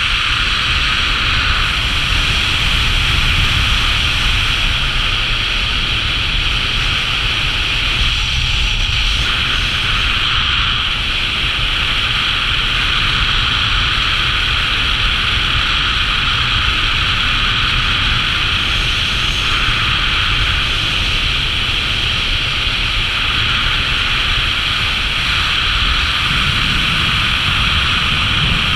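Steady rushing wind on a worn camera's microphone, from the airflow of a speed-flying descent under a small paraglider wing, with a low rumble beneath it.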